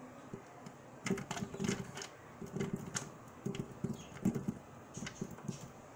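Chopped strawberry pieces dropping into a plastic pitcher onto a block of ice, in several short bursts of soft thuds and clicks.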